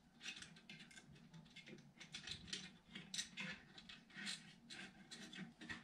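Faint, irregular scratching and light ticking as cables are pulled through and handled against a metal pedal frame.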